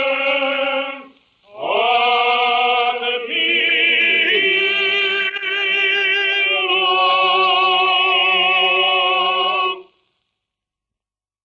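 Jewish cantorial singing (hazzanut): a male cantor's voice holding long notes with vibrato, in an early-twentieth-century recording. A short breath break comes about a second in, and the closing held note stops about ten seconds in.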